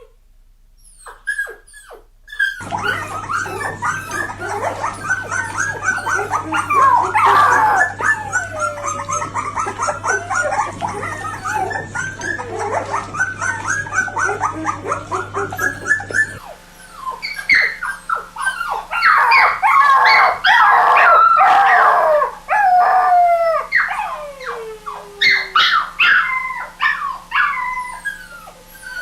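Puppies crying and whimpering: many overlapping high whines that rise and fall, from several pups at once. The recording changes about sixteen seconds in, where the whines become sharper and more broken.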